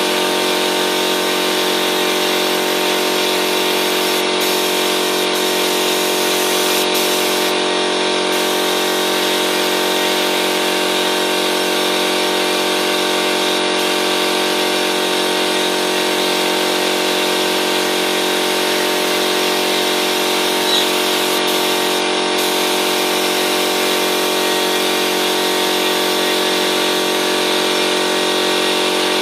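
Air compressor running steadily: a constant mechanical hum with a hiss over it.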